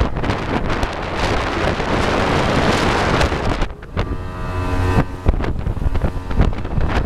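Wind buffeting the microphone on a fast-moving jet boat. About four seconds in, the wind eases for a second or so and the boat's engine shows through as a steady drone before the wind noise covers it again.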